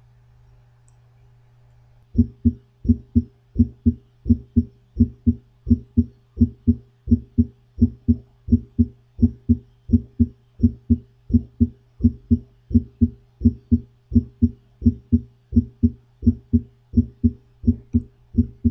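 Recorded heart sounds: a steady run of evenly spaced low lub-dub beats starts about two seconds in, over a constant low hum.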